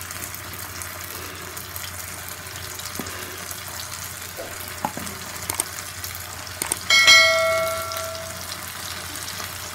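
Plantain slices shallow-frying in oil on an iron dosa tawa, a steady sizzle with a few faint crackles. About seven seconds in, a single bell chime rings out and fades over about a second.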